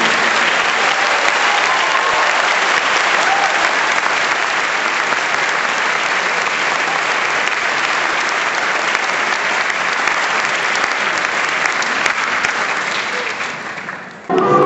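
Audience applauding steadily, dying away about a second before the end, when music starts up.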